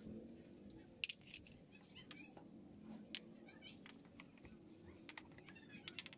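Faint, scattered metallic clicks and taps of hand tools and small engine parts being handled as the timing-chain cover comes off a Kawasaki Barako 175 cylinder head. The sharpest click comes about a second in, over a faint low hum.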